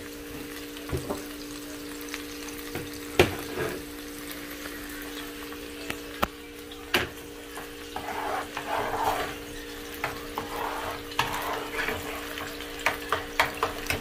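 Diced tomato, onion and green chile sizzling in oil in a nonstick skillet, over a steady low hum. Scattered sharp clicks and knocks come through it, the loudest about three seconds in and a quick run of them near the end.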